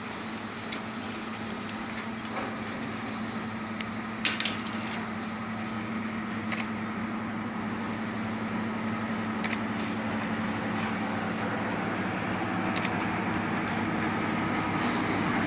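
Diesel locomotive approaching under power with a steady engine hum that grows gradually louder as it nears. A few sharp clicks stand out over it, the loudest about four seconds in.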